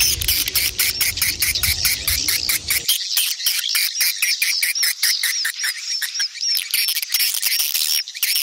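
Swiftlets calling: a fast, unbroken run of high, repeated chirps and twitters, several a second, of adult and chick swiftlet calls. A low rumble underneath stops suddenly about three seconds in.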